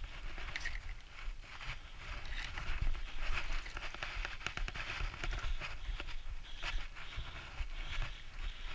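Mountain bike rolling over a rocky dirt trail: tyres crunching on rock and soil, the bike rattling, with many small knocks and clicks from bumps.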